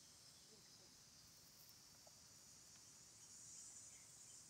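Near silence: a faint, steady high-pitched hiss that swells slightly about three seconds in, with a few very faint ticks.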